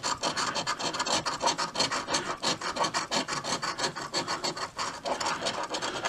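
A one-ounce silver coin scraping the coating off a paper scratch-off lottery ticket on a wooden tabletop, in rapid, even back-and-forth strokes that stop shortly before the end.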